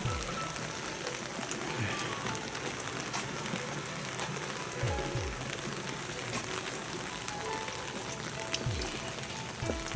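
Steady rain, with scattered drops ticking close by, over faint background music.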